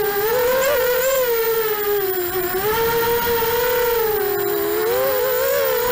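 Racing quadcopter's Emax 2204 2300kv brushless motors spinning 5045 three-blade props, heard through the onboard camera: a steady high whine whose pitch rises and dips with the throttle.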